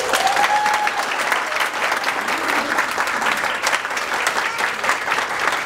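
Audience applauding steadily, with a rising cheer from one voice in the first second.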